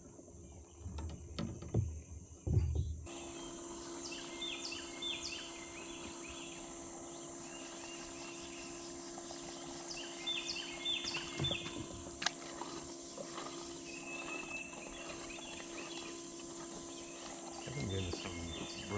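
Summer outdoor ambience: insects chirring steadily while a bird repeats a short chirping phrase every few seconds, over a steady low hum. A few low thumps come in the first three seconds.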